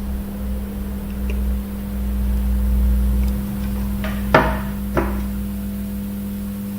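Two sharp metallic clicks, a little over half a second apart, each with a short ring, from a brass Zippo lighter and its parts being handled after refuelling, over a steady low hum.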